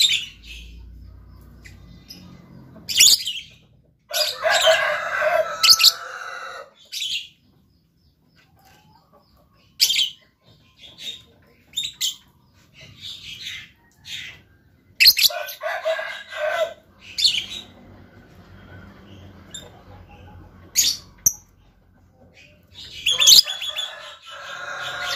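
Lovebird singing: sharp, high chirps scattered throughout, broken three times by bursts of rapid chattering that last about two seconds each.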